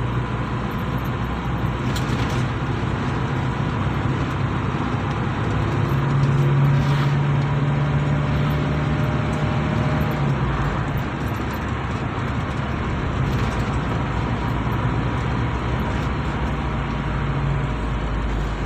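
Mitsubishi Kuda's 2.5-litre four-cylinder diesel engine pulling the van in the high gears, heard from inside the cabin with road noise; the engine note rises about a third of the way in and drops back around the middle. The clutch is not slipping: the engine still pulls under throttle in fifth gear.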